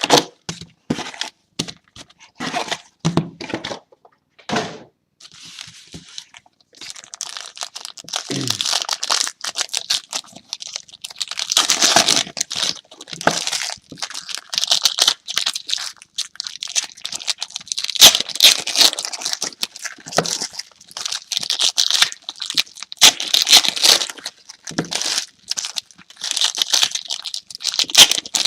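Plastic wrapping on a box of trading cards being torn open and crinkled, with irregular crackling and a few sharp clicks from the cardboard being handled.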